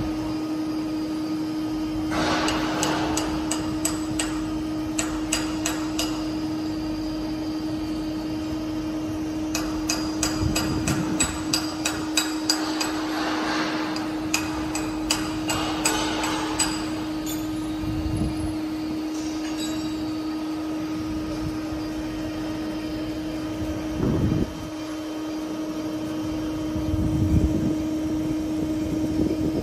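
Machine-shop sound around a large CNC horizontal boring mill: a steady hum at one pitch, with clusters of sharp, hammer-like metallic taps from about two to seventeen seconds in and a few duller thuds later. The hum dips briefly about twenty-four seconds in.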